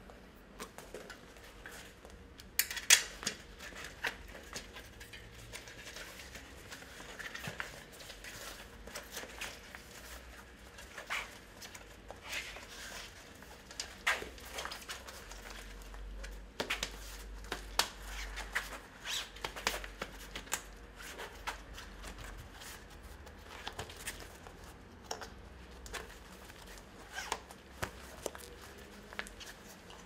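Hands working a bicycle tyre on and off its rim: scattered clicks, taps and rubbing of tyre, rim and tools, the loudest a few sharp clicks about 3 s in.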